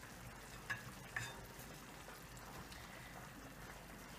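Beet, tomato-paste and garlic zazharka for borscht stewing in a frying pan, with a faint steady sizzle and a couple of soft knocks about a second in.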